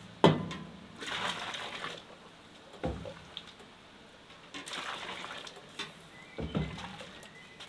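Water splashing and pouring as an enamel bowl is dipped into and emptied over a large steaming metal pot, in two spells of a second or so. There are three dull knocks along the way, the first one loudest.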